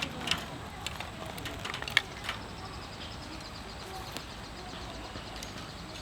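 A handful of sharp knocks and snaps over the first couple of seconds, the loudest about two seconds in, then a steady outdoor background hiss.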